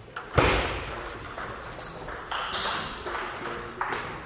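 Table tennis ball ticking and pinging on bat and table in a large hall, with a loud thump about half a second in and more light knocks after it.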